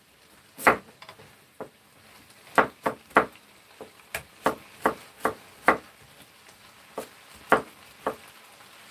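Kitchen knife chopping a carrot on a wooden cutting board: about fourteen separate knocks at an uneven pace, closest together in the middle.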